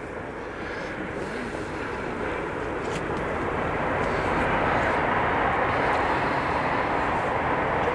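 A steady rushing noise that grows louder over the first four seconds or so and then holds.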